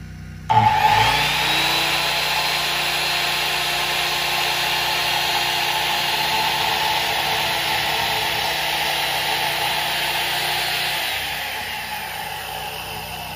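Corded left-blade worm-drive circular saw: the trigger is pulled about half a second in and the saw climbs smoothly to speed within a second. It then runs steadily while cutting into a timber beam, and winds down with a falling whine over the last two seconds or so as the trigger is released.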